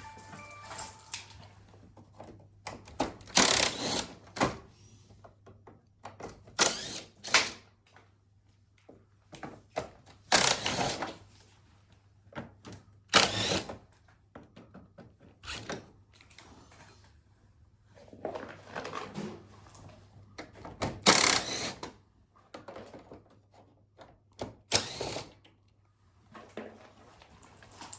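Irregular knocks, clatter and scraping of an air conditioner's parts being handled and pulled off during disassembly, about a dozen separate bursts. A faint steady low hum sits under them.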